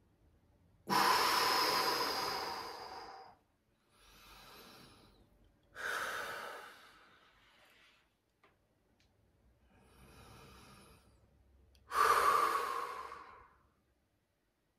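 A person breathing deeply and audibly during a breathwork exercise: three loud, forceful breaths, each starting sharply and fading over one to two seconds, with two quieter breaths between them.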